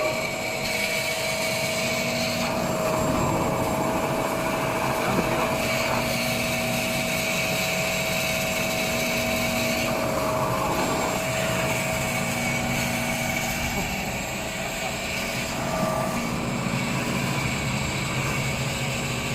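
Semi-automatic maxi roll paper band saw cutting machine running at speed with a steady whine, its pitch settled after spinning up. Rougher noise comes and goes over it, and the main tone fades about three quarters of the way through.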